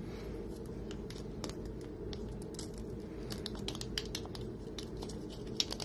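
Irregular quick clicks and light taps from Bengal kittens batting and pouncing in play, several a second, over a steady low hum.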